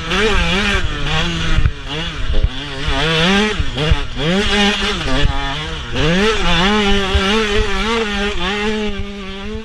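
2016 TM 125 two-stroke motocross bike engine revving hard, its pitch climbing and dropping again and again as the rider works the throttle and gears, holding steadier for a few seconds in the second half. Low thumps and wind rumble sit underneath.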